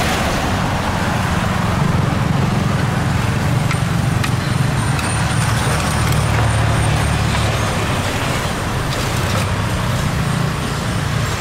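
Steady road traffic noise with a continuous low engine rumble, and a few faint clicks over it.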